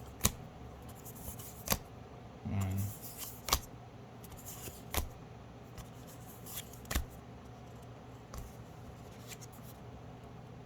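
Pokémon trading cards being flipped through by hand: a series of short, sharp card snaps, roughly one every second or two.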